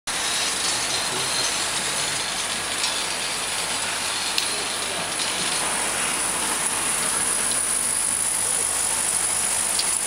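GFZ-4 vial filling, plugging and crimping machine running: a steady mechanical hum with a high hiss from its turntable and conveyor, and a couple of faint clicks.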